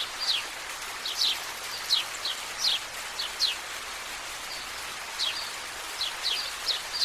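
Songbirds calling with short, high, downward-sweeping chirps, one after another with a brief lull near the middle, over a steady hiss of outdoor ambience.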